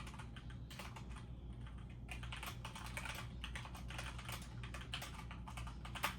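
Computer keyboard typing: an irregular run of quick key clicks over a low steady hum.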